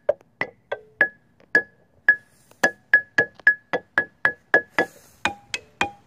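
Outdoor xylophone struck with mallets: single notes with short ringing, mostly one high note hit over and over about three or four times a second, moving to lower notes near the end.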